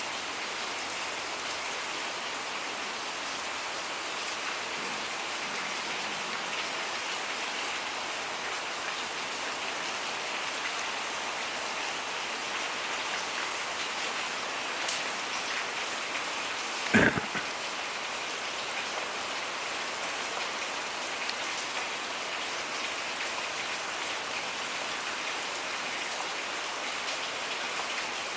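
Steady rain falling and pattering on surfaces, an even hiss without let-up. About two-thirds of the way through there is a single sharp knock, louder than the rain.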